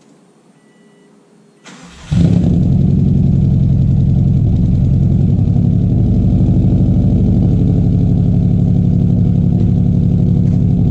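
2005 Subaru WRX STI's turbocharged 2.5-litre flat-four cranks briefly about two seconds in, catches, and settles into a steady idle. The engine has a cylinder 3 misfire, with that cylinder making only 60 psi of compression.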